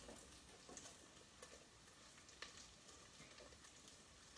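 Bacon frying in a stainless steel stockpot as its fat renders out: a faint sizzle with scattered light clicks of a utensil stirring it.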